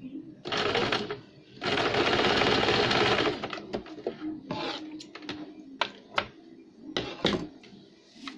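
Electric domestic sewing machine stitching elastic into a hem: a short run of stitches, then a longer run of about a second and a half. A few sharp clicks follow in the second half.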